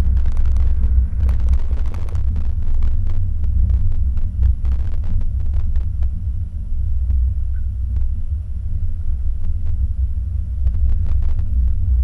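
A car driving slowly over a snow-covered road, heard from a camera mounted outside by the side mirror: a heavy, steady low rumble of wind and road noise on the microphone, with scattered crackles that come thickest near the start and again near the end.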